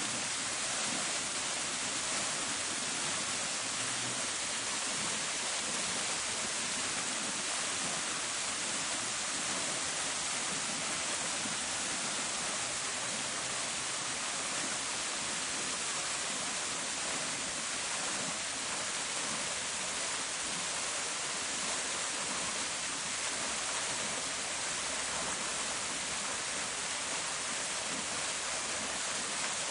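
Park fountain: water splashing steadily into its basin, an even hiss with no let-up.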